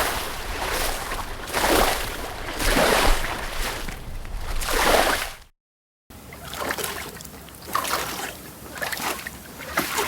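Footsteps wading through water: a sloshing splash with each stride, about one a second. About halfway through there is a brief dead silence, and then a second take starts with shorter, choppier splashes.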